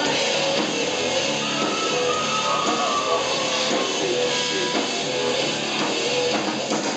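Live rock band playing at full volume, electric guitar prominent, with a few held notes above the dense band sound, recorded from within the crowd.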